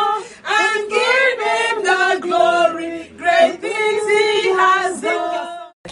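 A small group, mostly women's voices, singing a praise chorus together in unison without instruments. The singing cuts off abruptly shortly before the end.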